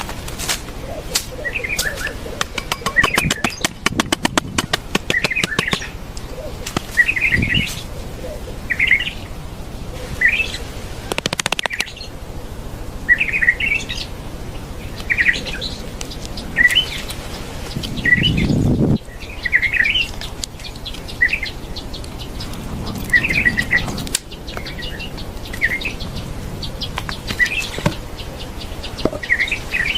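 A bird chirping over and over, short calls every second or two. A rapid run of clicks comes a few seconds in, and there are a few dull thumps, the longest about two-thirds of the way through.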